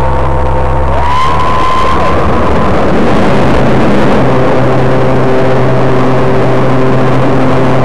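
An RC T-28 Trojan model's motor heard close up from the wing: it is throttled up about a second in, its pitch rising, then runs steadily at high power through the takeoff run and lift-off, with a rush of air.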